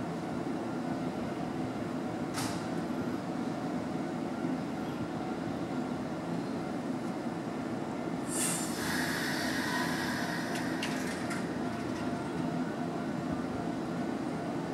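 Nankai 7000 series electric train rolling slowly into the platform, with a steady low running rumble. About eight seconds in a high metallic squeal starts and lasts about three seconds, followed by a few light clicks.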